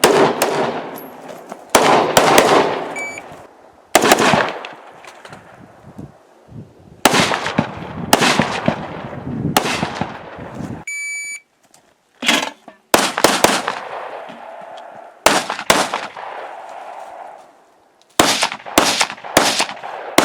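Rifle fire during a practical shooting stage: about fifteen single shots at irregular spacing, several in quick pairs, each followed by a long echoing tail. A short electronic beep sounds about halfway through.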